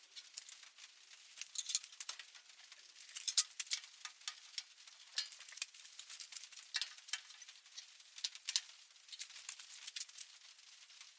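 Irregular light clicks and rattles of small hard parts being handled, a quick cluster of them a few times, the loudest about a third of the way in.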